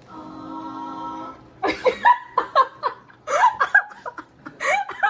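People laughing in short bursts that start about one and a half seconds in, after a steady held tone of about a second.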